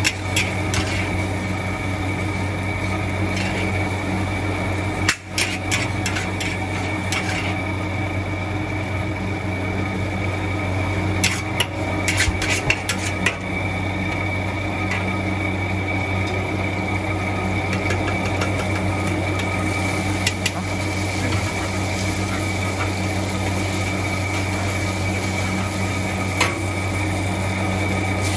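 Metal spatula clanking and scraping in a wok as char koay teow is stir-fried, with sharp knocks that cluster about halfway through, over a steady low hum.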